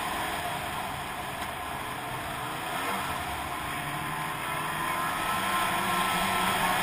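Snowmobile engine running under way, with a steady rush of noise. It eases off slightly about a second in and picks up again toward the end.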